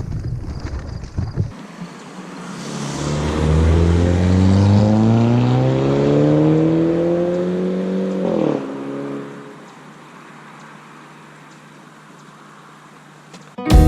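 A motor vehicle driving past on the road: its engine pitch climbs steadily as it approaches and accelerates, then drops sharply as it passes, about eight and a half seconds in, and fades away. Wind rumbles on the microphone at the start.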